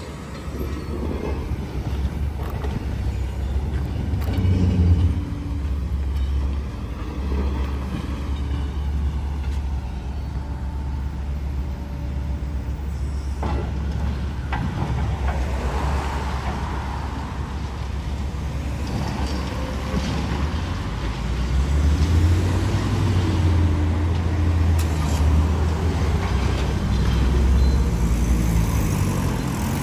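Road traffic passing close by: car and van engines and tyres on the road, a low rumble that grows louder for several seconds in the last third.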